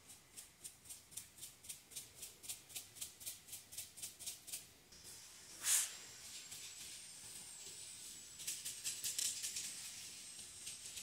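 Loose dry yerba mate shaken inside a mate gourd: a rapid, even, maraca-like rattle at about four shakes a second for the first five seconds. A single louder knock comes near six seconds in, and another burst of shaking follows a few seconds later.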